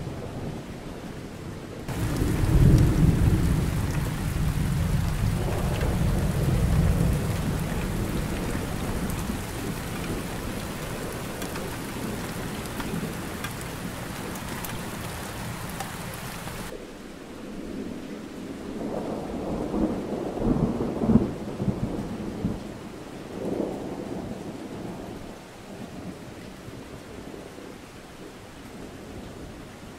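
Thunderstorm: steady rain with rolling thunder. A loud clap of thunder breaks about two seconds in and rumbles on, slowly fading; past the middle the bright rain hiss drops away suddenly, and a second bout of thunder rumbles with a few sharper cracks about two-thirds of the way through.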